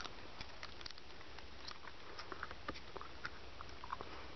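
Faint, scattered small clicks and crackles of mouth noises from a mouthful of soft mints, over a steady background hiss.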